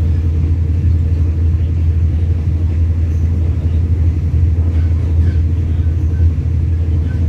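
Steady low rumble of a passenger train running along the track, heard from inside the coach.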